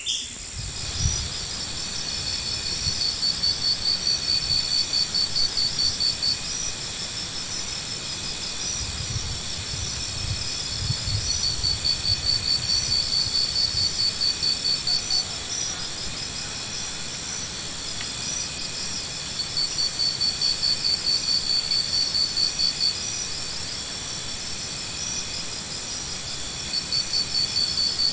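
Insects chirping outdoors: trains of rapid high pulses, about four a second, each train lasting a few seconds and then pausing, over a steady high insect drone.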